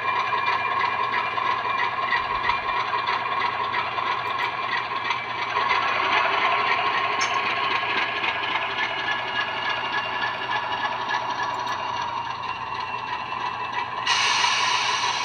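Model locomotive's sound decoder playing an Alco 244 diesel engine sound through its small onboard speakers as the model runs. The engine sound swells about five and a half seconds in. A sudden hiss joins it near the end.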